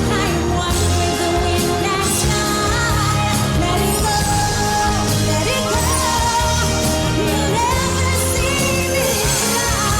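Fireworks show soundtrack music with singing over a steady bass line.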